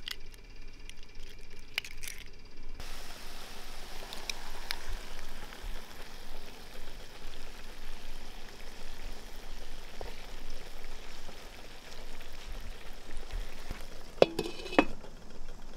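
A skillet of eggs and diced potatoes sizzling steadily as it fries, starting about three seconds in after a few light clicks. Near the end a glass lid is set on the pan with two sharp clinks.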